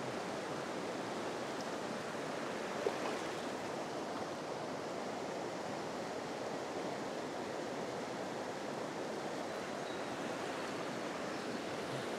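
Steady rush of a fast, shallow river run tumbling over rocks, with one brief sharper sound about three seconds in.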